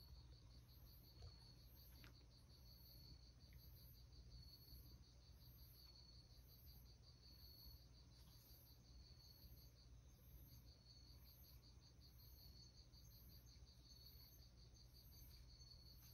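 Near silence with faint insect chirping: a fast, continuous trill with a short break about ten seconds in, and a higher chirp repeating a little more than once a second.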